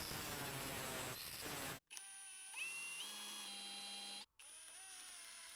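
Small power tool grinding down and drilling a golf ball. A steady rasping grind comes first, then, after cuts, a motor whine that steps up in pitch.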